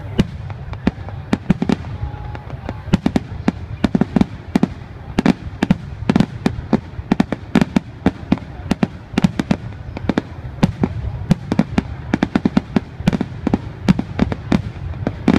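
Aerial fireworks display: shells bursting in rapid, irregular bangs, several a second, over a steady low rumble.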